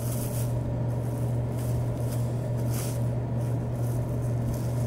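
Plastic wrap crinkling as it is peeled back off a pork chop pounded flat on a cutting board, over a steady low hum.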